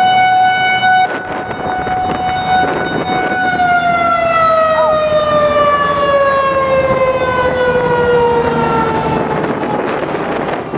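Outdoor tornado warning siren sounding one steady tone that drops in loudness about a second in, then winds down, its pitch falling slowly and fading over the next several seconds.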